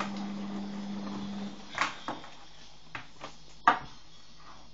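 A steady low hum that stops about a second and a half in, then five sharp knocks or clacks at uneven spacing, the loudest about three and a half seconds in.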